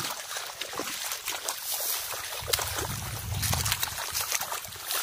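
Hands splashing and sloshing in shallow muddy water, with many small irregular splashes as they grope through the mud for a snakehead fish. A low rumble comes in around the middle.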